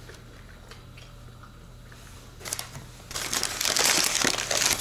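Takeout food packaging being crinkled and rustled. A dense, loud crackling starts about three seconds in and goes on for a couple of seconds.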